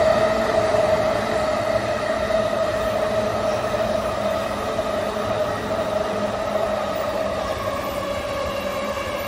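JR Chuo Line Rapid commuter train passing through the station without stopping: steady rail running noise with a whine that sinks slightly in pitch and eases a little in loudness after the first second.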